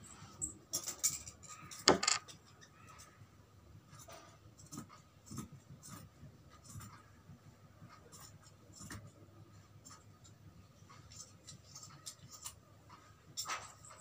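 Scissors cutting through a layer of cloth, a string of soft snips with the cloth rustling as it is held and moved. A sharper knock about two seconds in.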